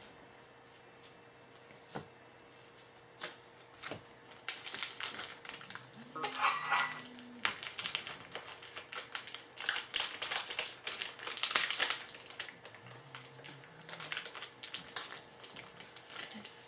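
Trading cards and a foil card-pack wrapper being handled: irregular crinkling, rustling and small clicks, starting a few seconds in and busiest in the middle.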